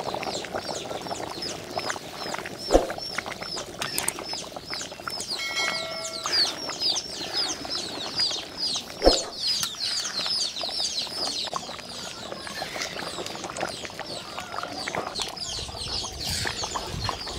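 Birds chirping over and over in quick succession, high and thin, with two sharp knocks, about three seconds in and about nine seconds in, and a brief pitched tone around six seconds in.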